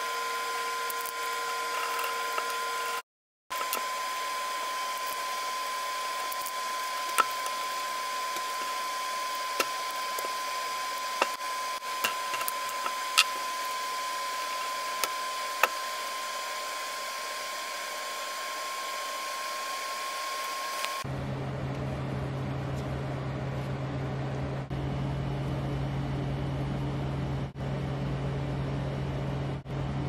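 Scattered small clicks and taps as the plastic housing and metal contacts of a water heater thermostat are handled and taken apart, over a steady mechanical whir with a faint high tone. About two-thirds of the way through, the background changes abruptly to a lower, steady drone.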